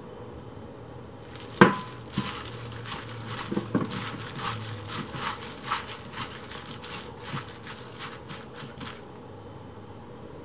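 Thin plastic food-prep glove crinkling as a hand tosses sliced cucumbers in a bowl, with quick irregular crackles and squishes that stop near the end. A sharp knock on the bowl about a second and a half in is the loudest sound.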